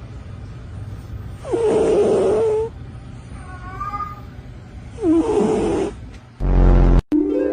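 A cat yowling twice. Each harsh, drawn-out call lasts about a second, slides in pitch and then holds steady.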